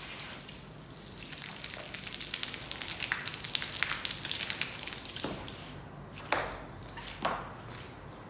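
Detergent pouring and scattering over a soaked rug on wet tiles: a dense crackling hiss of fine patter for about four seconds, fading out. Two sharp knocks follow near the end.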